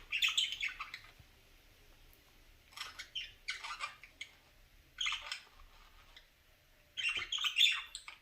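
Pet bird chattering in four short bouts of high chirps and squawks, with pauses of a second or two between them.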